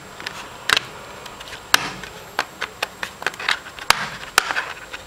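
Plastic RAM compartment cover being pressed onto the underside of an Asus Eee PC netbook: a string of irregular sharp clicks and taps as it is fitted and snapped into place.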